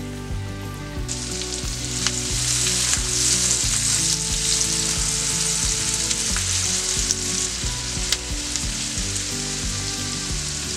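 Sliced onion sizzling in hot fat in a cast-iron skillet as it is stirred with a silicone spatula; the sizzle swells about a second in and stays loud, with scattered light ticks of the spatula against the pan.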